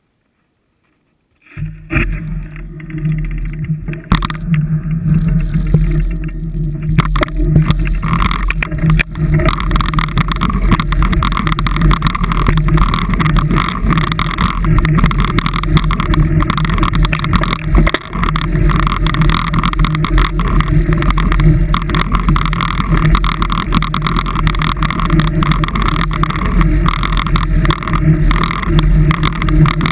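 Loud steady vehicle running noise, an engine drone mixed with heavy wind rushing over the microphone of a vehicle-mounted camera while driving. It cuts in suddenly after about a second and a half of silence.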